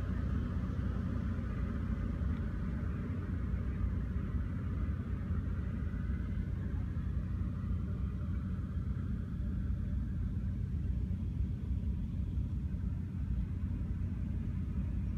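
Steady low rumble with a fainter hiss above it, even throughout.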